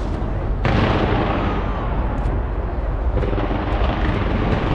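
Skyscraper New Year fireworks display bursting in quick succession: a dense, continuous barrage of bangs and crackling, surging sharply about half a second in.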